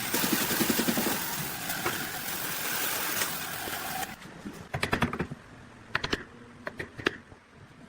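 A power tool running steadily, which cuts off abruptly about four seconds in. Then come scattered sharp knocks and clicks, like wooden pieces being handled and tapped.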